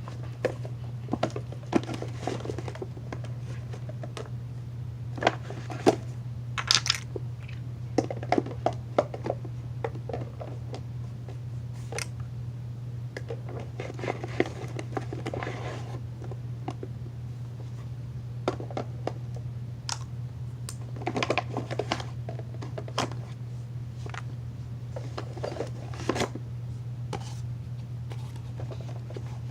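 Slime-making supplies (plastic containers, cups and glue bottles) being handled and set down: scattered clicks, knocks and rustles at irregular moments, over a steady low hum.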